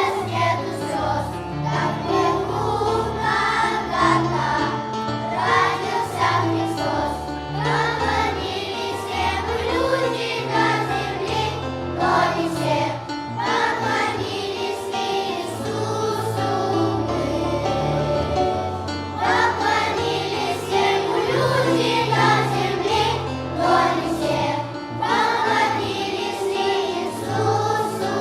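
Children's choir singing a Christmas song in unison over instrumental accompaniment with a steady bass line.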